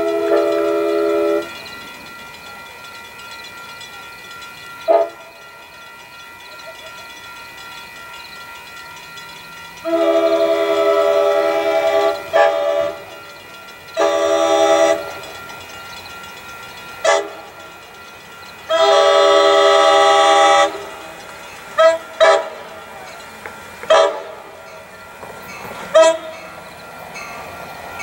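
Approaching train's air horn blowing a series of chord blasts: long blasts at the start, about ten seconds in and about nineteen seconds in, a shorter blast around fourteen seconds, and several brief toots in between.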